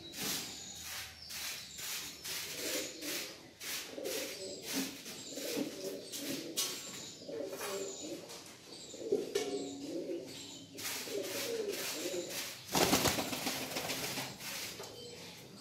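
American Saint fancy pigeons cooing: low, rolling coos repeated again and again, over light clicking and scratching. A brief louder rustle comes near the end.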